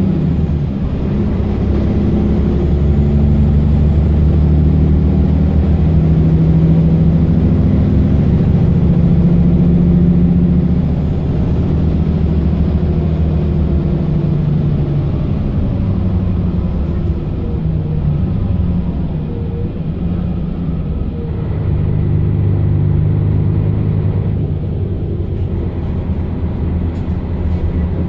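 Mercedes-Benz Citaro O530 LE bus's 12-litre OM457hLA six-cylinder diesel heard from inside the cabin while driving: the engine works hard for about ten seconds with a faint high whine, eases off, then builds again about three quarters of the way through.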